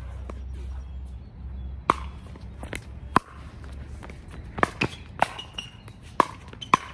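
Pickleball rally: paddles striking a hollow plastic pickleball, about seven sharp pocks with the first about two seconds in, coming faster in the second half. A steady low rumble runs underneath.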